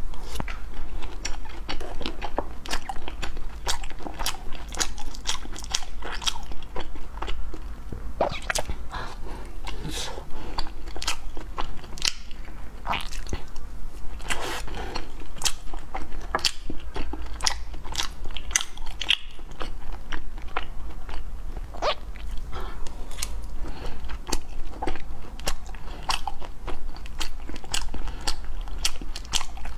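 Close-miked chewing of Oreo-dusted glutinous rice balls (tangyuan), with many sharp mouth clicks and smacks. A low steady hum runs underneath.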